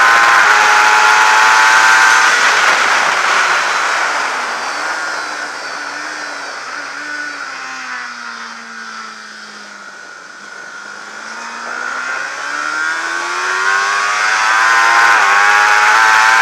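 Onboard sound of a 600cc supersport racing motorcycle engine, heard with wind rush. It runs loud at high revs, then the throttle is rolled off and the revs fall steadily and the engine quietens through a corner. About ten seconds in the rider opens the throttle again, and the revs climb back to full volume with a change of pitch near the end.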